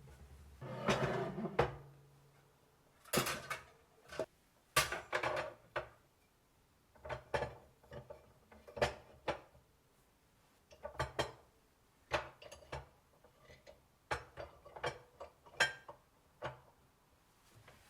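Kitchen things being handled and put away: irregular clusters of short knocks and clinks, with a longer sliding scrape about a second in.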